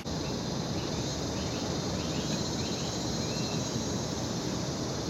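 Outdoor morning ambience: a steady buzzing of insects, likely crickets, over a constant rushing background, with a few faint short chirps in the first few seconds.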